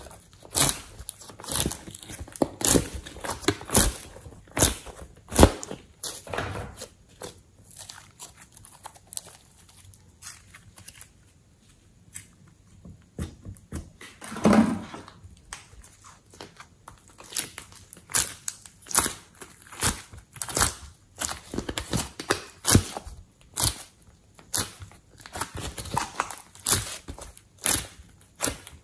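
Slime being squeezed and pulled by hand from the cells of a plastic ice cube tray, giving sticky clicking and crackling pops every second or so. The pops thin out for a few seconds midway, and a single heavier squelch comes about halfway through.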